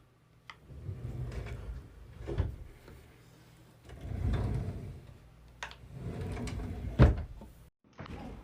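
Fridge drawers and plastic food containers being handled during restocking: a series of slides, clicks and knocks, with the sharpest knock about seven seconds in.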